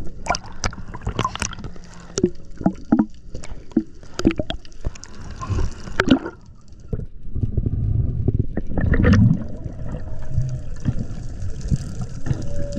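Water gurgling and sloshing as heard by a camera underwater. Many sharp clicks and knocks run through the first half, and a louder low rush of water comes about eight to nine seconds in.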